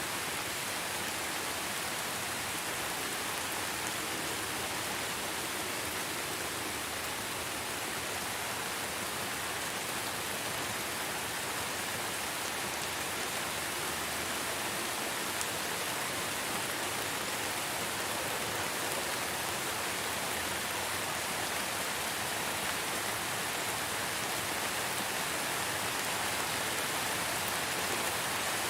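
Steady rain falling, a dense, even hiss of many drops with no single drop standing out, swelling slightly near the end.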